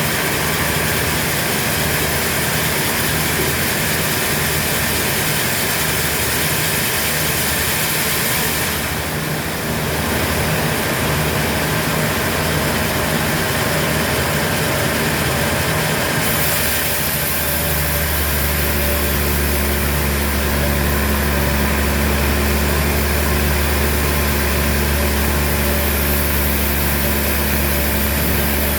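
Heavy sawmill machinery running steadily, a constant mechanical noise with an engine hum. About two-thirds of the way in, a deeper steady hum sets in and stays.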